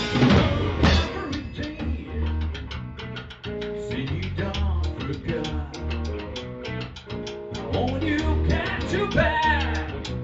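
Blues-rock band playing: heavy drum hits at the start, then the drum kit keeping a steady beat under bass and guitar, with a melodic line bending in pitch near the end.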